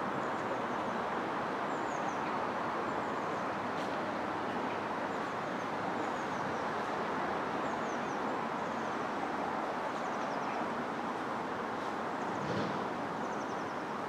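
Steady outdoor background noise with small birds chirping above it: short, high, falling chirps repeated every second or so.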